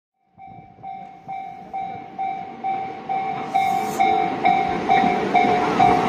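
Japanese railway level-crossing warning bell ringing about twice a second, a repeated pitched clang. Under it the rumble of a commuter train grows steadily louder as it runs past the crossing.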